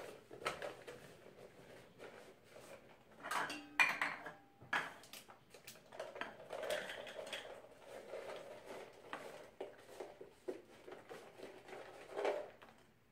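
Irregular light clinks and knocks of kitchen utensils against a mixing bowl as raisins are added. The clatter is loudest a little over three seconds in and again near the end.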